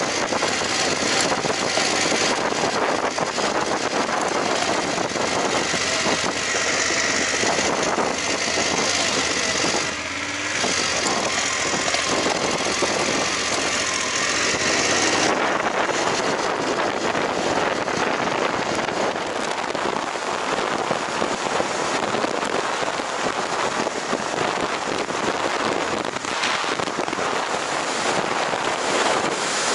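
Wind rushing over the microphone of a camera on a moving BMW GS adventure motorcycle, with its parallel-twin engine running under the wind noise. The hiss grows fuller about halfway through.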